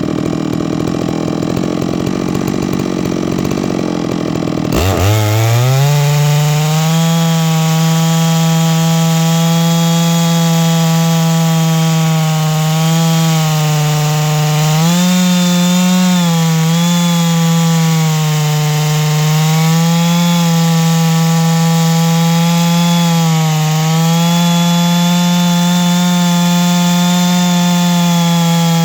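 Chainsaw mill running at full throttle through a large black oak log. About five seconds in, the engine note climbs sharply in pitch. It then holds high and steady, wavering slightly as the load on the chain changes.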